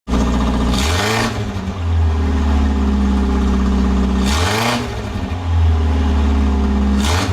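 Car engine running loudly and blipped three times, the pitch climbing briefly each time before settling back to a steady run.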